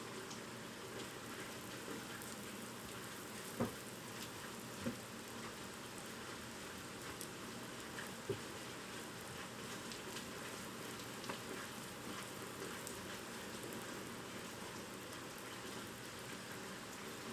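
Typhoon rain falling steadily in an even hiss, with a few louder drip or tap sounds about 3.5, 5 and 8 seconds in.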